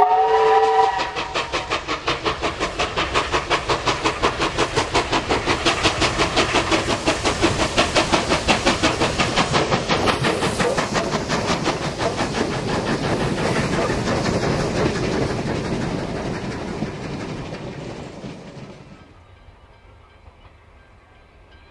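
NSW 38 class 4-6-2 steam locomotive 3801 working hard as it passes. A short whistle blast in the first second is followed by a fast, even run of exhaust beats, which fade and drop away about 18 seconds in, leaving only faint distant sound.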